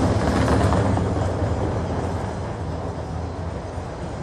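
A tram rumbling past on its rails, the noise fading away over the first two seconds or so as it moves off.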